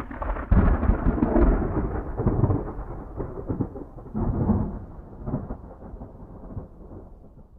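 A deep rolling rumble, loudest about half a second in, swelling again briefly near the middle, then dying away over several seconds.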